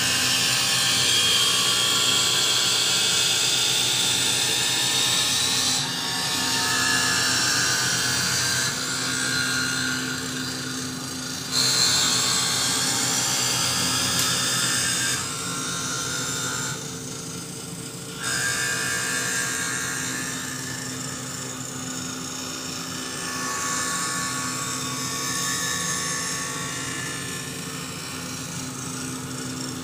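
Lens edging machine running with a steady mechanical whine whose higher tones slowly drift, shifting in level a few times, around 6, 12 and 16–18 seconds in.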